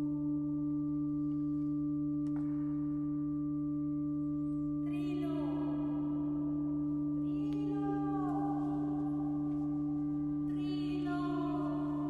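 A vocal ensemble holding a steady drone of pure, unchanging tones, while high voices come in three times, about five, seven and eleven seconds in, each with a call that slides down in pitch.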